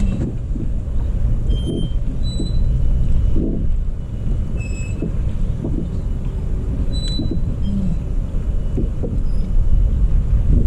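Wind buffeting the microphone, a steady uneven low rumble, with a few faint short high-pitched chirps scattered through it.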